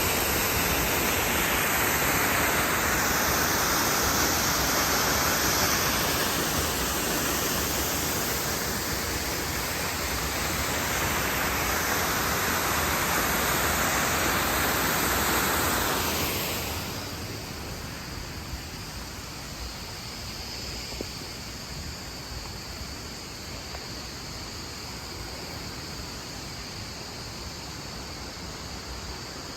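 Waterfall rushing steadily as a dense, even roar of falling water. About halfway through it drops suddenly to a quieter, duller rush.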